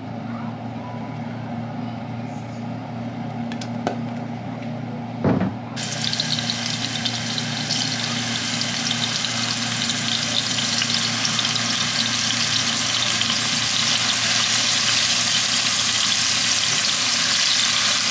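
Marinated chicken pieces frying in oil in a pan: a dense sizzle cuts in about six seconds in and grows louder. Before it there is a steady low hum and a single knock.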